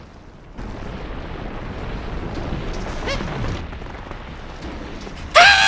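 Foley rumble that comes in about half a second in and holds, with a falling pitched squeal around three seconds in. A loud, short honking vocal cry comes near the end.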